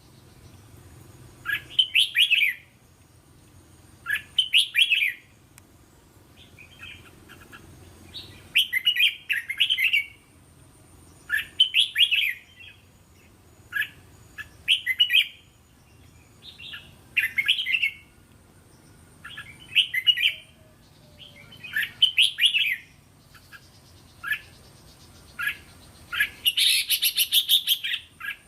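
Red-whiskered bulbul singing short, chirpy phrases, one every two to three seconds, with a louder, harsher burst of calls near the end.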